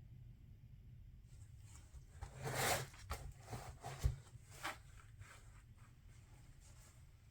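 Handling noise: a few seconds of rustling and scraping with a sharp knock about four seconds in, over a low steady hum.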